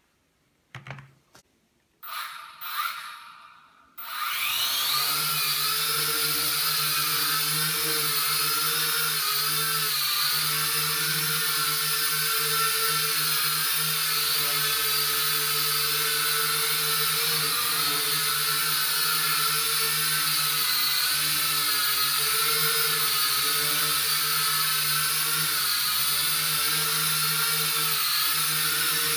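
A few short noises, then from about four seconds in the JJRC H8D quadcopter's four small brushed motors and propellers whine steadily as it hovers, the pitch wavering slightly as the throttle is corrected.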